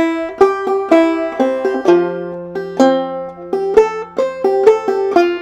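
Five-string banjo in double C tuning played clawhammer style: a steady run of plucked open-string notes with skip strokes and thumbed fifth-string notes, each note ringing briefly.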